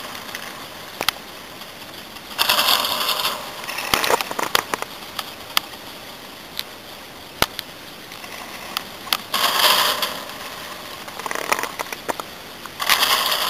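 Drag ski lift's haul rope running over the sheave rollers on a lift tower: a rattling rumble each time a hanger's rope grip passes over the roller train, three times (about 3 and 9 seconds in and again near the end), with sharp metallic clicks in between.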